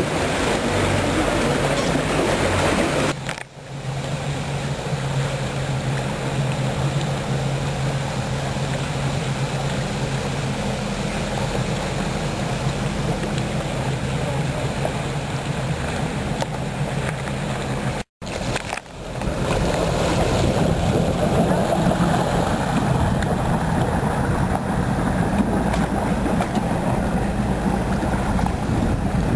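Boat engine running with a steady low drone under rushing wind and water noise. The sound cuts out briefly twice, about three seconds in and again a little past halfway, and the wind and water rush is louder after the second cut.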